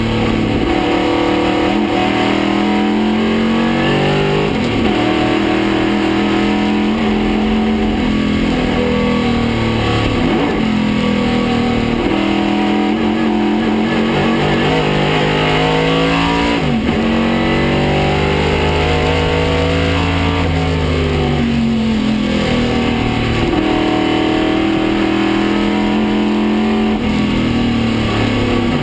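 A 1969 Chevrolet Camaro Trans-Am race car's 302 cubic-inch V8 at racing speed, heard from inside the stripped cabin. The engine pitch climbs under acceleration and drops back several times as the car brakes and changes gear for the corners.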